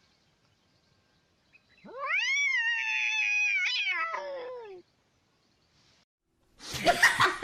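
A domestic cat's single long, drawn-out meow of about three seconds, rising in pitch at the start, held, then sliding down at the end. A burst of mixed noise starts near the end.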